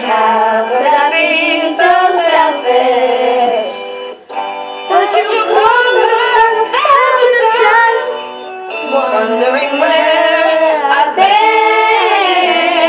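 Young girls singing a pop song in unison along with its recording playing back from a tablet. The sung phrases have short breaks about four seconds in and again near the middle.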